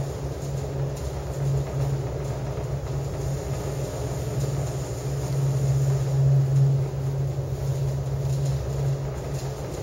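Steady low hum and rumble of an aerial tramway cabin running along its cables, heard from inside the cabin.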